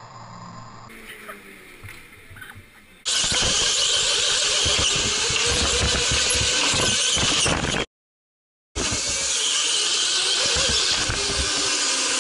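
Electric go-karts racing on an indoor track, heard from an onboard camera: a high motor whine and tyre squeal. The sound comes in loud about three seconds in, cuts out for a moment near the middle, then carries on.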